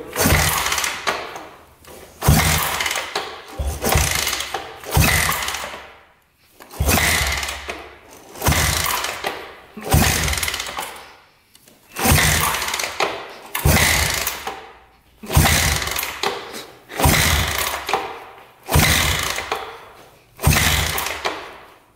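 1974 Honda CB360's air-cooled parallel-twin engine being turned over in about a dozen short bursts, roughly one every couple of seconds, with the throttle held open and a compression gauge in the left cylinder's spark plug hole: a compression test, which reads about 170.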